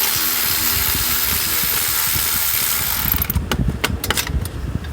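Milwaukee M12 3/8-inch cordless ratchet running under power, spinning a fastener out, for about three seconds before it stops. Irregular clicks and knocks follow.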